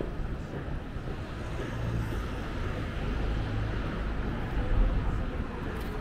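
Outdoor city ambience: a steady background hum of traffic, with a low rumble that swells and is loudest about five seconds in, then eases.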